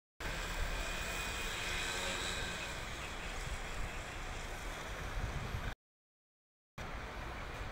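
Steady outdoor city background noise, with wind buffeting the microphone. It drops out into a second of dead silence a little under six seconds in.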